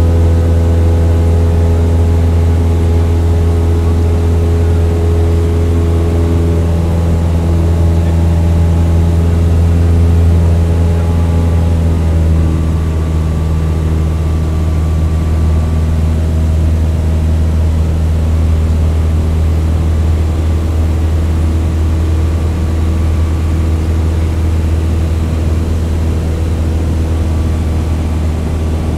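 Propeller aircraft engine running steadily in cruise: a strong low hum with a stack of steady tones above it, which shift slightly about twelve seconds in.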